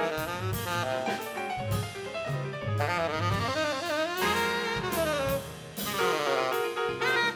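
Tenor saxophone playing the lead line in a live jazz band, over piano, double bass and drum kit with cymbals.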